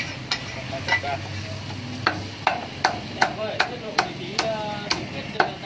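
Cleaver chopping a roast duck on a thick round wooden chopping block: a few separate chops, then from about two seconds in a quick, even run of about nine chops, two or three a second.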